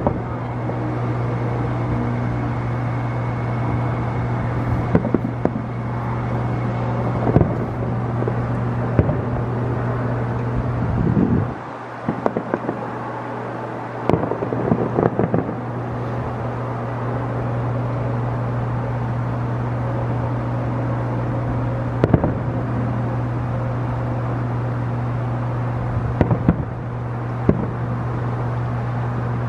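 Distant fireworks going off in scattered bangs and crackles every few seconds, with a cluster of bursts in the middle, over a steady low hum.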